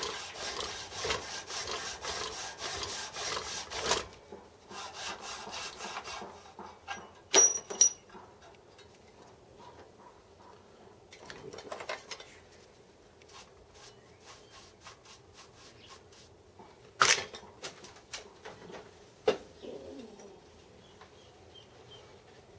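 Hacksaw sawing a slot in a cast-metal fly-cutter body clamped in a vise: a fast run of strokes for about four seconds, then a shorter run. A sharp metallic clink follows about seven seconds in, then lighter scattered scrapes and two sharp knocks later on.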